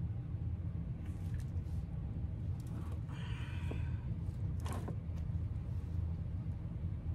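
Steady low hum throughout, with faint brief rustles around three seconds in and again just before five seconds.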